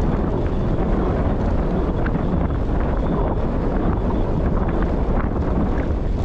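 Wind rushing over and buffeting the microphone of a camera on a moving bike, a steady loud rumbling rush.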